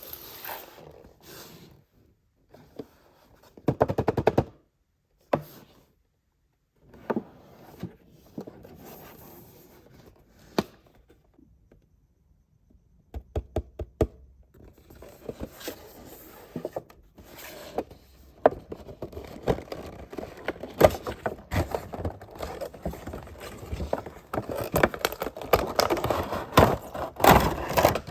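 Hands handling plastic toys and packaging: scraping and rustling with sharp clicks and taps, a loud burst about four seconds in, a short pause, then faster, denser clicking and scraping toward the end.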